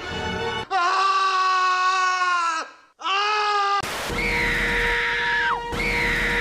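A woman screams, first a long scream that falls in pitch at the end, then a shorter one. Then comes a burst of TV static hiss carrying two harsh, falling hawk screeches, each about a second and a half long.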